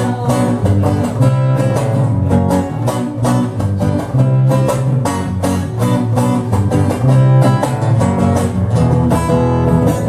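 Acoustic guitar strummed in a steady rhythm, with an electric bass guitar playing low notes underneath: an instrumental passage between sung lines of a song.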